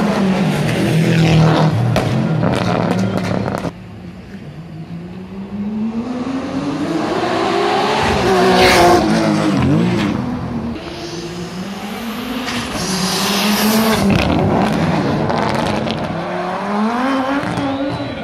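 Rally car engines at full throttle: first an Audi quattro's turbocharged five-cylinder pulling away with crackling pops, cut off suddenly a few seconds in. Then another rally car's engine comes on, its note climbing and dropping several times as it accelerates and shifts.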